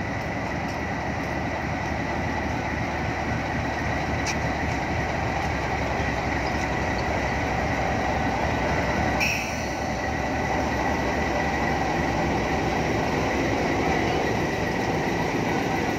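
Diesel-electric locomotive running and pulling slowly away past the listener, a steady rumble with a thin high whine over it. There is a short sharp burst of noise about nine seconds in.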